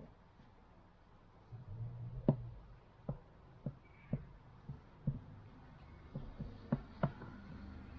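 About a dozen light, sharp knocks and taps at uneven intervals, starting about two seconds in, over a faint low hum: objects being handled and set down during a plastic repair.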